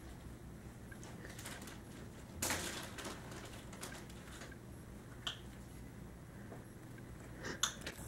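Quiet indoor room tone: a faint steady low hum, a short rustling knock about two and a half seconds in, and two small clicks later on. No jet engine noise stands out.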